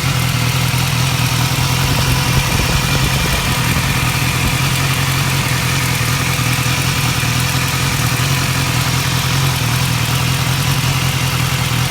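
2015 BMW S1000R's inline-four engine idling steadily with a ticking that seems to come mainly from the left side of the engine. The ticking was the sign of a faulty cam chain tensioner and throttle butterfly valve; replacing them cured it.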